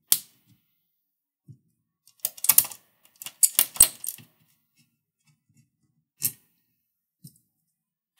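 Small metallic clicks and clatter of a screwdriver and tiny screws on a laptop's magnesium top case: a sharp click at the start, two bursts of clatter about two and three and a half seconds in, and single clicks near six and seven seconds.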